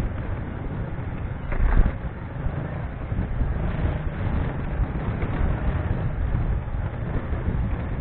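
Riding noise from a motorcycle-mounted camera: wind rumbling on the microphone over the steady drone of the engine and passing traffic, with one brief louder burst a little under two seconds in.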